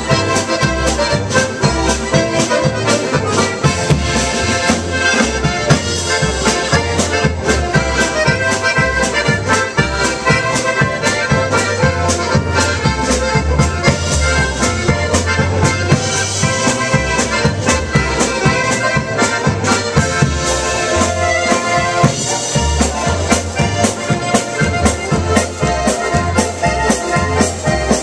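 Live Slovenian-style polka band playing: several accordions, diatonic button accordions and a piano accordion, carry the tune over a drum kit keeping a steady beat and a bass line that alternates between low notes.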